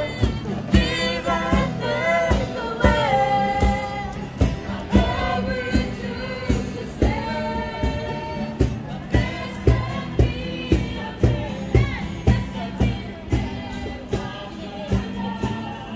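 A small group of street singers singing together in harmony over a steady beat of about two strokes a second. The singing grows fainter toward the end.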